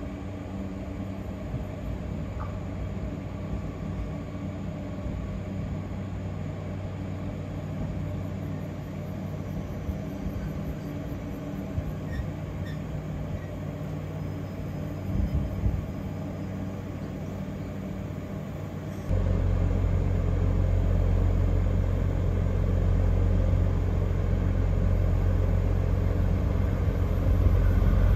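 Trains at a station: a standing train's steady low hum while a second train draws in on the next track, with faint wheel or brake squeal. About two-thirds of the way in, a much louder low rumble starts suddenly. Near the end the noise of an approaching express train begins to rise.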